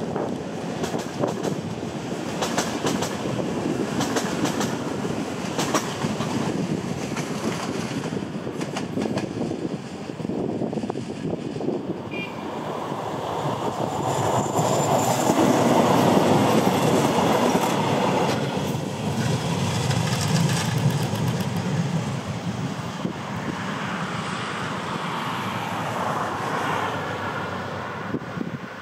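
A train running past, its wheels clicking over the rail joints in quick runs through the first half. The sound swells to its loudest about halfway through, then eases off.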